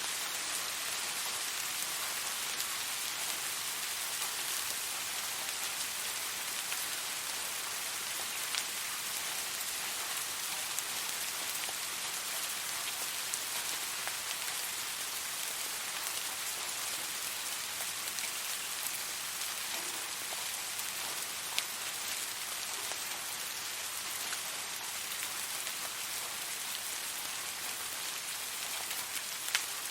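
Steady rain falling, an even hiss with the occasional distinct drop striking close by.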